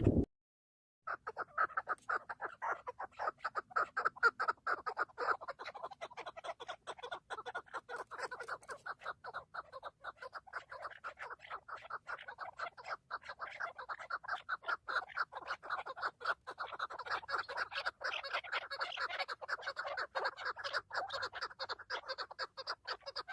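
Chukar partridges calling: a dense, unbroken run of rapid clucking chuk notes that starts about a second in and carries on steadily.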